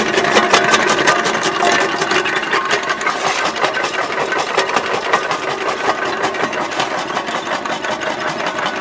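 Homemade jaw crusher running and crushing fired brick and concrete rubble, its jaws making a rapid, steady, rhythmic clatter with a mechanical hum underneath.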